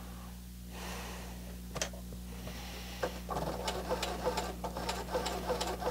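Singer Heavy Duty 6800C sewing machine running, stitching through a thick old leather belt: a steady motor hum, with the needle strokes ticking regularly, about three a second, from about halfway in.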